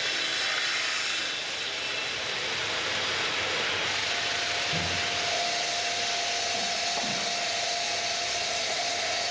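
Ring-system granite block cutting machine running with a steady, hissing machine noise, joined about four seconds in by a steady whine.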